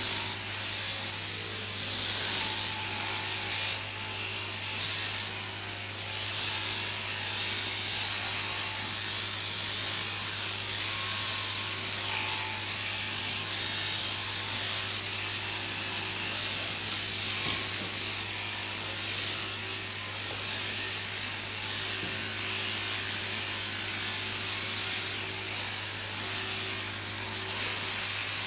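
Mechanical sheep-shearing handpieces running steadily, their cutters buzzing through fleece over a constant low hum from the shearing plant.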